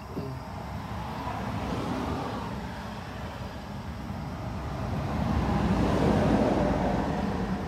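Rushing noise of a passing vehicle, building slowly to a peak about six seconds in and easing off near the end.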